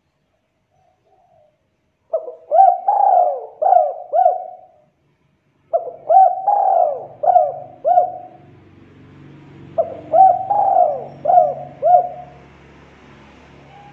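Spotted dove cooing: three phrases of about five quick coos each, a second or two apart.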